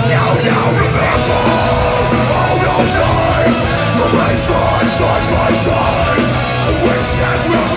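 Metalcore band playing live at full volume, heard from the audience: distorted electric guitars, bass and drums under a shouted, screamed vocal.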